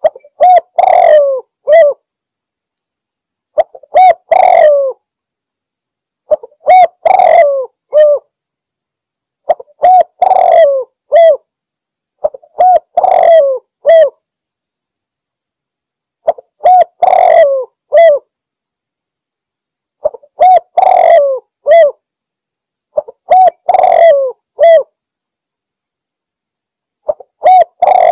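Spotted dove (tekukur) cooing: the same short phrase of a few quick notes, one longer coo and a final short note, repeated about every three seconds.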